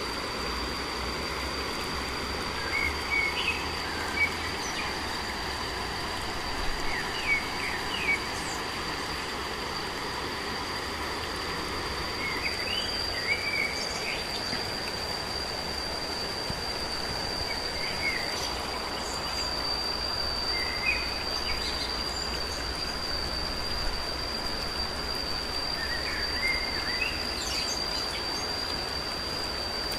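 Outdoor countryside ambience: a steady high-pitched insect drone over an even hiss, with short bird chirps every few seconds.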